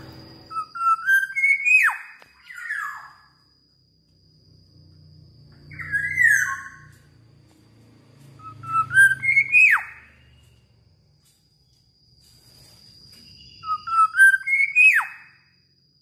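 Black-naped oriole singing four short bursts of fluty whistles. Most are a few notes stepping up in pitch that end in a quick downward swoop.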